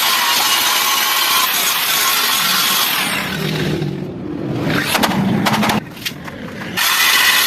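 A power tool working metal: a steady harsh hiss that dies away about three seconds in, a few sharp clicks, then the hiss starts up again near the end.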